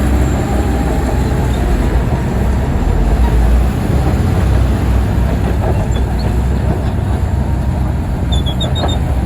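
Heavy earthmoving machinery's diesel engine running under load with a loud, steady deep rumble, with a few short high squeaks near the end.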